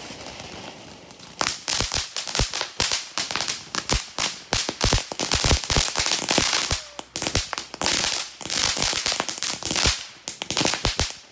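Ground fountain firework hissing as it sprays sparks, then about a second and a half in breaking into dense, rapid crackling pops that keep going.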